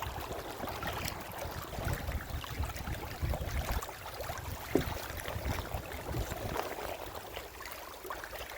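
Water lapping and gurgling against a kayak hull in a fast-running tidal current, with an uneven low rumble of wind on the microphone and a few small knocks or splashes.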